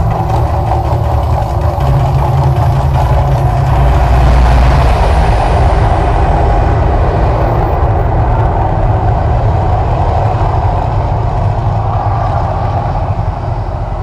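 Mirage volcano attraction erupting: a loud, deep, steady rumble with a rushing hiss, swelling about four seconds in and fading near the end as the fire and fountain effects die down.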